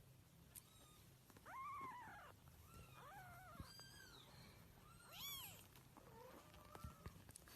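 Kittens mewing faintly: about five separate high-pitched mews, each rising and then falling in pitch, with a steady low hum underneath.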